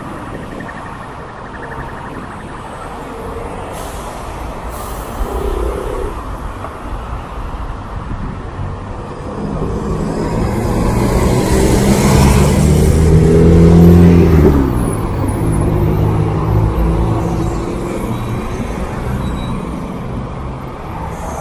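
Steady urban street traffic with buses and cars, and two brief hisses about four seconds in. From about halfway through, a diesel coach bus passes close: its engine grows loud, peaks, and its note drops slightly as it goes by before fading back into the traffic.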